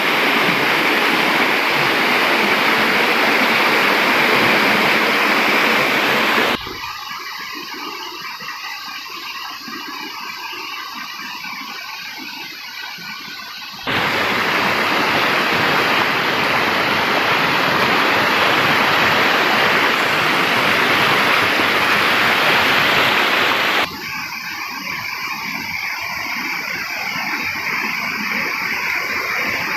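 Rushing water of a shallow rocky stream and its small cascades: a loud, steady hiss. It drops abruptly to a much quieter background about a fifth of the way in, comes back loud about halfway through, and drops again about four-fifths of the way in.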